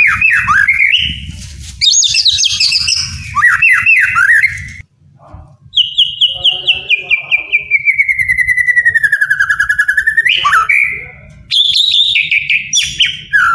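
White-rumped shama singing loud, varied whistled phrases. Midway it delivers a long run of quick repeated notes, about five a second, sliding steadily down in pitch for some four seconds, then a sharp rising note, before going back into whistled phrases.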